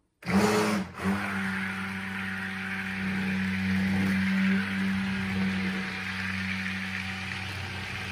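Electric immersion blender switched on in a bowl of cold process soap batter, blending the oils and lye solution toward trace. A short first burst stops briefly about a second in, then the motor hums steadily.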